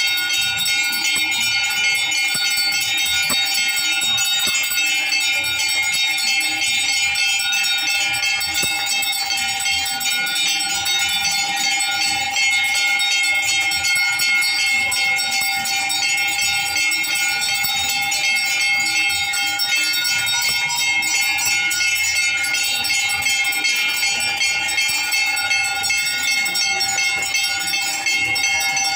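Temple bells ringing rapidly and without a pause, a steady metallic jangle that holds for the whole time.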